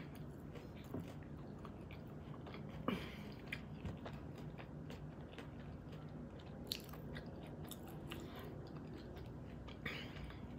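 A person chewing a bite of a rolled tortilla, with a few faint mouth clicks scattered through the chewing.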